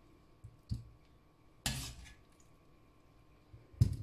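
Metal slotted spoon knocking against a cast-iron wok and a glass dish as boiled potatoes are scooped out and set down, with the wet sound of broth. There are three sharp clinks, the loudest near the end.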